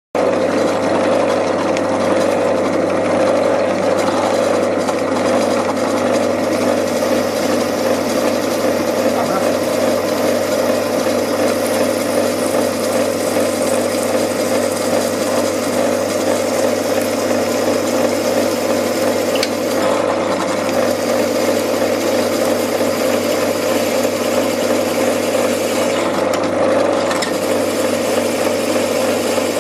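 Pillar drill running steadily, its motor and spindle giving a constant hum with a steady mid-pitched tone, the bit turning in reverse in the metal block.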